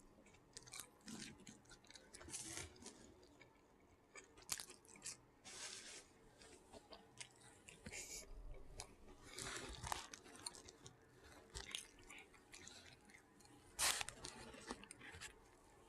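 A person chewing food close to the microphone: irregular crunchy, smacking bites every second or two, with one sharper, louder crunch near the end.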